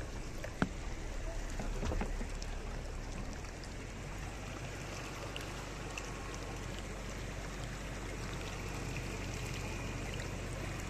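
Off-road vehicle creeping over a rocky, wet streambed: steady engine and tyre noise, with a sharp knock about half a second in and a few thumps around two seconds in.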